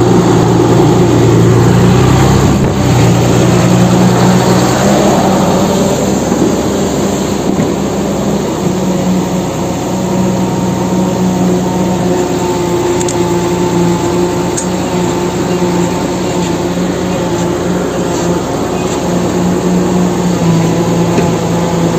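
Battery-powered toy excavator running: a steady, loud mechanical hum with a rough, engine-like drone over it, and a thin higher whine joining about halfway through.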